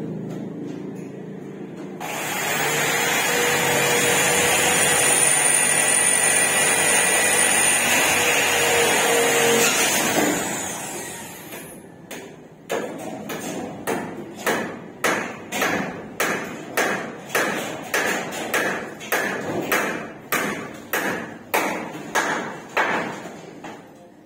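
A power drill runs steadily for about eight seconds while installing a metal furring ceiling grid. After a pause come about twenty sharp hammer strikes at roughly two a second.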